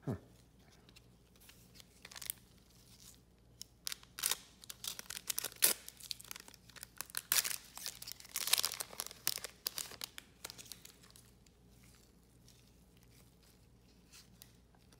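A Panini Select baseball card pack's wrapper being torn open and crinkled by hand: a dense run of sharp crackles and rustles that builds a few seconds in, is thickest through the middle, then stops.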